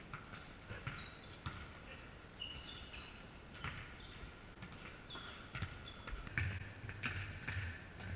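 Basketball game play in a large sports hall: a basketball bouncing on the wooden floor and repeated short, high sneaker squeaks as players cut and stop.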